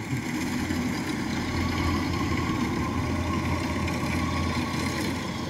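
Rice combine harvester (the DC-93) running steadily at work in a ripe paddy, a constant diesel engine hum with machinery noise.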